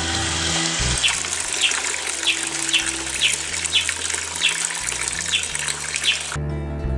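A stream of water pouring into a plastic bucket, splashing and bubbling steadily, then cutting off suddenly near the end. Soft background music runs underneath.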